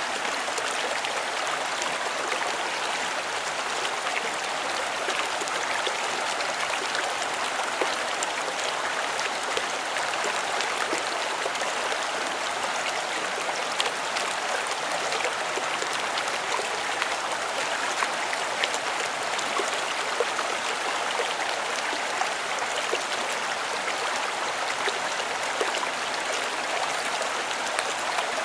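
River water running and splashing over rocks at small cascades: a steady, even rush with little droplet ticks.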